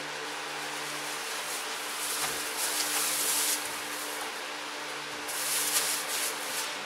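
Plastic bag rustling in two spells as onions are taken out of it and set on a cutting board, over a steady low hum.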